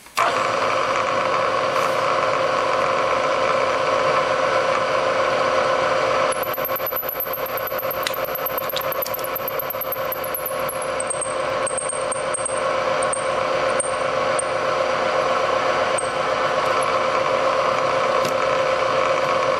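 Vertical milling machine switching on and running steadily with a reamer in the spindle, opening up a bolt hole in a five-layer MLS steel head gasket held in an aluminium fixture. A thin high whine rises over the hum from about six to eleven seconds in, then gives way to faint broken high tones.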